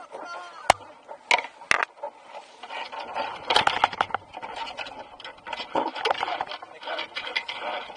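Spray and chop spattering on a Laser Fun sailing dinghy and its mounted camera as the boat moves fast, with a few sharp knocks early on and denser spattering from about three seconds in.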